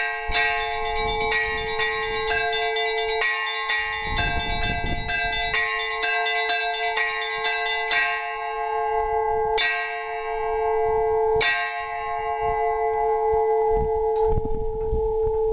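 Orthodox monastery church bells rung for the blessing of water: smaller bells strike in quick succession over the steady hum of a deep bell. The quick strikes stop about eight seconds in, two more strikes follow, and then the deep bell's hum rings on alone.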